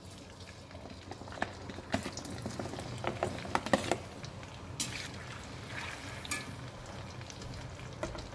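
Cut lemon pieces frying in hot sesame oil in an iron kadai, a steady sizzle, with a slotted metal spatula scraping and clicking against the pan as they are tipped in and stirred.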